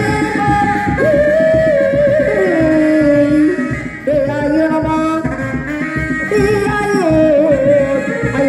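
Sundanese reak music: a single wavering melody line held in long, sliding notes over fast, dense dog-dog drumming.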